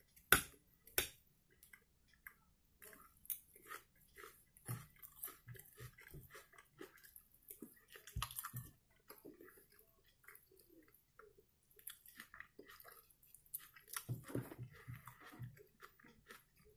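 Close-up chewing of a forkful of soft boiled potato: small wet mouth clicks and squelches, irregular throughout. Two sharper clicks stand out within the first second.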